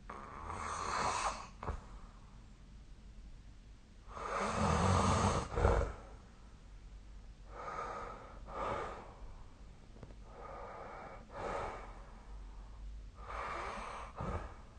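A sleeping person snoring: five noisy breaths about three seconds apart, each ending in a short catch. The one about four seconds in is the loudest and deepest.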